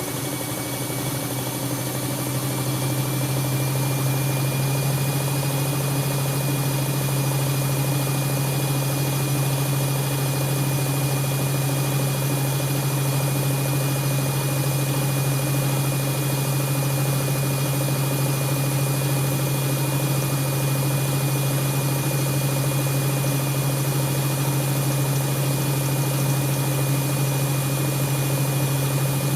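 Siemens Siwamat iQ 714 washing machine running continuously: a strong steady hum with a thin high whine that rises slightly over the first few seconds and then holds level.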